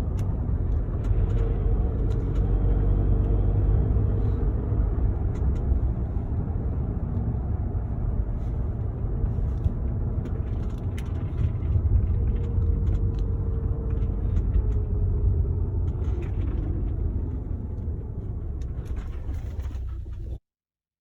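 Car driving on the road: a steady low rumble that cuts off abruptly near the end.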